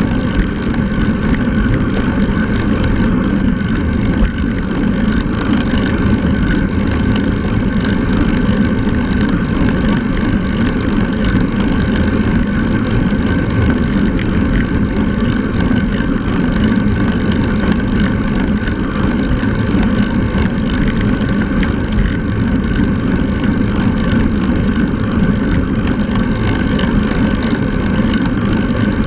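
Steady wind rushing over a bike-mounted action camera's microphone while riding a road bike at speed, mixed with the hum of tyres on asphalt.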